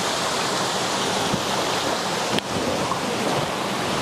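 Shallow stream water rushing steadily over rocks, with a short drop-out about two and a half seconds in.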